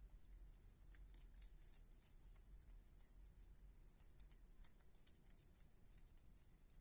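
Faint, quick, irregular clicking and smacking of a Virginia opossum chewing wet cat food from a paper plate, with one slightly louder click a little after four seconds in.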